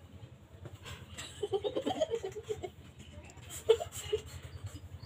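Several young people giggling, held back, in short choppy bursts for about a second and a half, with one sharp burst of laughter a little later.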